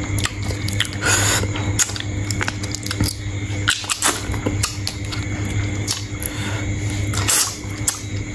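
A person eating shrimp: shells crackling and chewing, with many sharp clicks scattered through, over a steady low hum.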